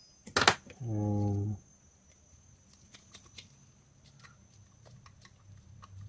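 Small metal handling sounds of a spinning reel being reassembled: a sharp click about half a second in, then faint scattered ticks as a screwdriver turns a screw into the reel body. A short low hum comes about a second in.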